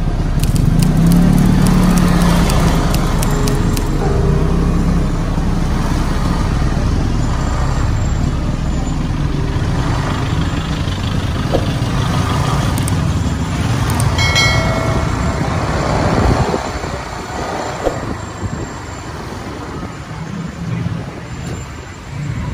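City street traffic heard from a moving motorbike: engines running and steady road rumble, with a brief high tone a little past the middle, and quieter in the last few seconds.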